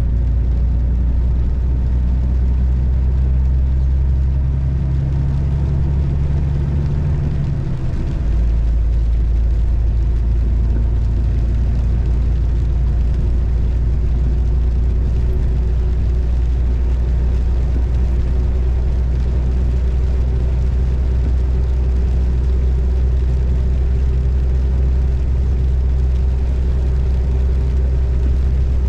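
A car driving on a road: a steady low engine and road rumble. About eight seconds in the engine note briefly dips and changes, and later a faint tone slowly rises in pitch.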